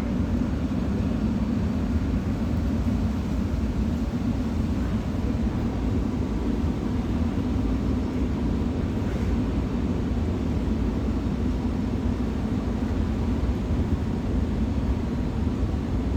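Steady low rumbling noise with a hum underneath, unchanging throughout.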